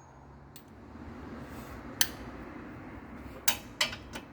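Metal hand tools clinking against metal parts during front strut work: a single sharp clink about two seconds in, then three more in quick succession near the end.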